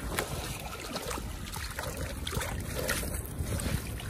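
Water splashing and dripping as a cast net is hauled in by its rope and lifted out of shallow water, with irregular small splashes and wind rumbling on the microphone.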